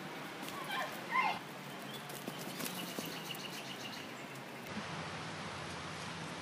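Running steps crunching over pine-needle litter against a steady outdoor hiss, with a short high-pitched cry about a second in and a quick run of small high chirps around three seconds in.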